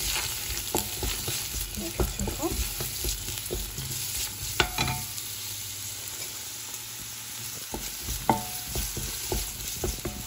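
Diced onions sizzling in oil in a stainless steel pot as they are sautéed to soften, stirred with a wooden spatula that scrapes along the pot's bottom. A few sharper knocks of the spatula against the pot, the loudest about halfway through and another near the end.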